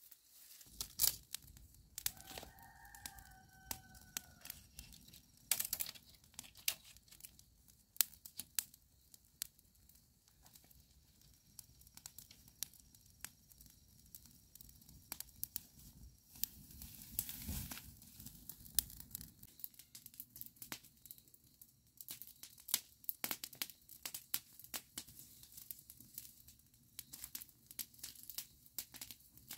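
Irregular rustling and crackling with many sharp clicks, like material being torn or crumpled. A brief tonal call, slightly falling, sounds about two seconds in.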